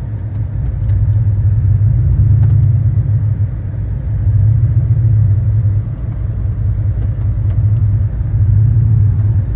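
Car driven through deep snow as it works its way out of being stuck, a low rumble that swells and eases every second or two.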